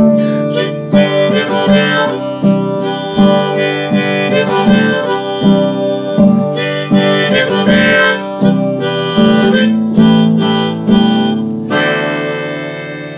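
Harmonica in a neck rack played over a strummed acoustic guitar: an instrumental break between verses. Near the end the strumming stops and a held note fades out.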